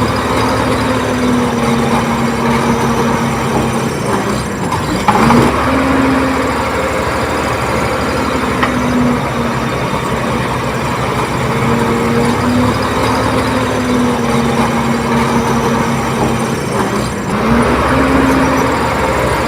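Komatsu D30P bulldozer's diesel engine running steadily. Its pitch sags and picks up again twice as the engine takes load, with a sharp clank about five seconds in.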